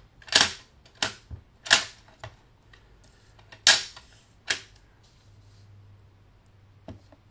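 A clear bunny stamp on an acrylic block is knocked down repeatedly onto an ink pad to ink it: five sharp clacks, three in the first two seconds and two more a couple of seconds later, with lighter taps between.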